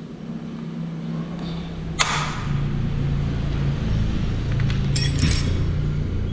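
Small metal clicks from the motorcycle's rear brake caliper and pads being handled: one sharp click about two seconds in and a few light clinks around five seconds, over a steady low engine-like hum that grows louder.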